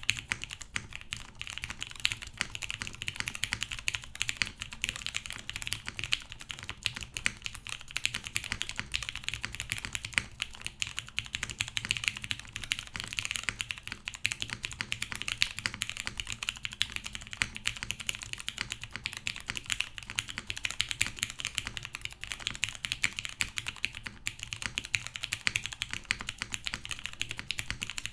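Continuous fast typing on a mechanical keyboard with lubed vintage Cherry MX Brown switches on a full aluminum plate, O-ring mounted with no foam, and POM keycaps: a dense stream of key clacks.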